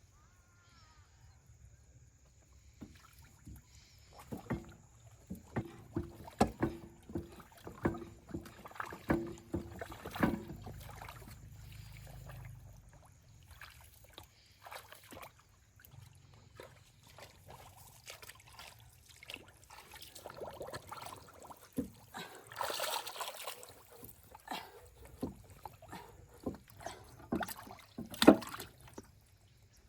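Irregular knocks, clicks and scraping of hand work on parts, with a short hiss about two-thirds of the way in.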